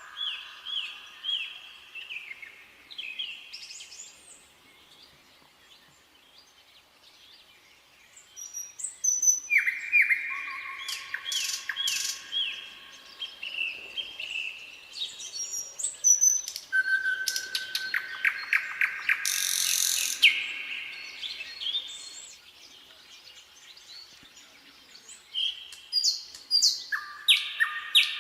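Nightingale singing in separate phrases of repeated notes and rapid trills, with pauses between phrases, one lasting a few seconds.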